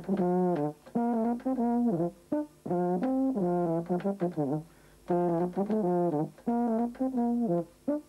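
A valved brass horn with an upright bell playing a tune: short phrases of separate, mostly repeated notes in a low-middle register, with brief pauses between phrases.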